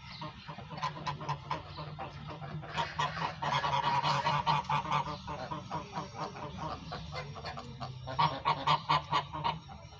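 Domestic geese calling in runs of short, rapid honks, loudest about three to five seconds in and again near the end.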